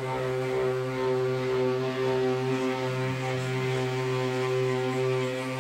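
Electric orbital sander running steadily on a car roof, a constant motor hum with a light sanding hiss as it strips the old clear coat.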